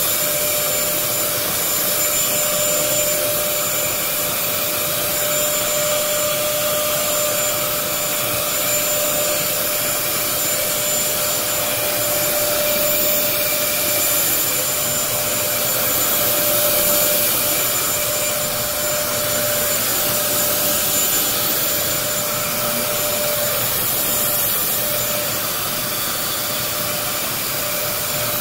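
Bissell DeepClean Premier upright carpet cleaner running steadily, its motor giving a constant noise with a high whine.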